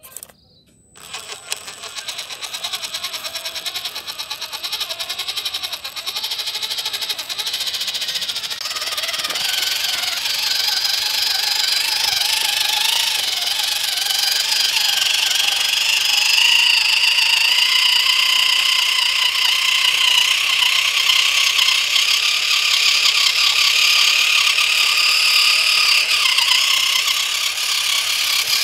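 The electric motor and gearbox of a WPL C24 1/16-scale RC pickup, whining and rattling as it drives loaded with rocks. The whine rises in pitch and grows louder after about ten seconds, then holds steady.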